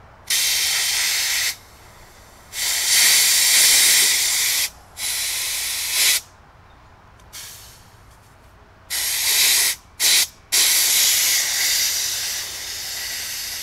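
Compressed air hissing out of the bleed valve of a Vevor 4500 PSI (300 bar) high-pressure air compressor in about six sharp-edged bursts, the last one long and slowly fading. The pressure held in the compressor's filter and water separator is being released after shutdown, purging its moisture.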